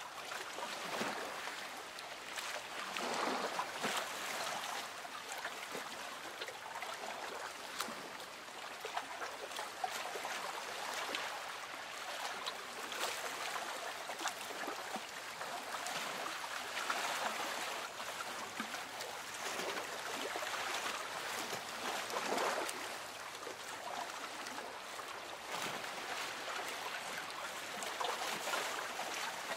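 Gentle water lapping against a small boat's hull, soft trickling and splashing that swells every few seconds.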